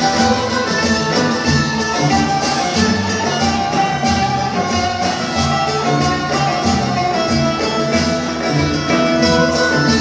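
Instrumental interlude of Turkish folk music: bowed strings carrying the melody over an ensemble with a steady low rhythmic pulse, no voice.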